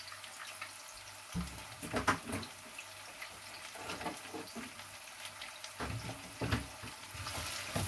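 Sliced red onions sizzling steadily in hot oil in a wok, with a few soft knocks and crackles along the way.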